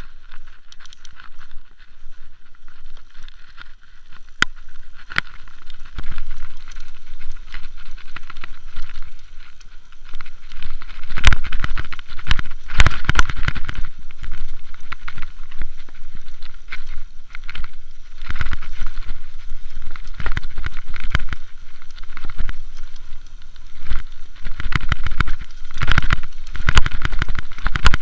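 Mountain bike rolling over rough, grassy ground: a stream of rattles and knocks from the bike with tyre noise, in louder bursts of clatter about a third of the way in, around two-thirds in and near the end.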